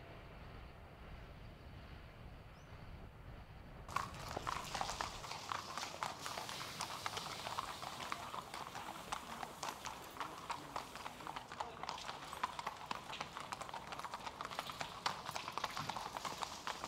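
Several horses' hooves clip-clopping on hard pavement as the horses are led at a walk, many hoofbeats overlapping, starting suddenly about four seconds in. Before that there is only a low, steady rumble.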